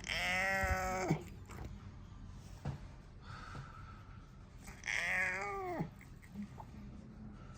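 Domestic cat meowing twice: two long, drawn-out meows about four seconds apart, each dropping in pitch at the end.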